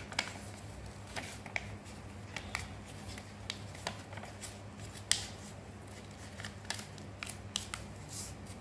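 A sheet of paper being folded and creased by hand: irregular crisp rustles and snaps, a few each second, over a faint steady low hum.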